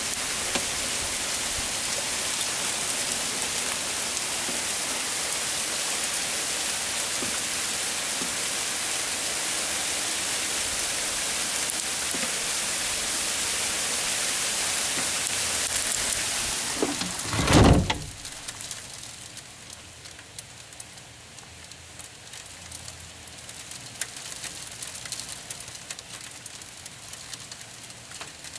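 Hail pelting down in a dense, steady hiss. About seventeen seconds in comes a loud thump, and after it the sound is much quieter, with only scattered ticks of hail.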